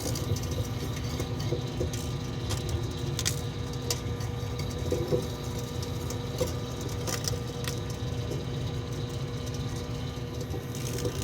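Microwave oven running with a steady hum, with a few faint clicks scattered through. An EMF beanie on a mannequin head is heating inside.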